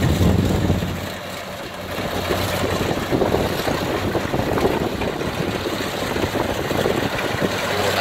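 Kubota DC60 combine harvester's diesel engine running as the machine cuts lodged rice. A steady engine hum fades about a second in, leaving a busy rattling noise of the working machine.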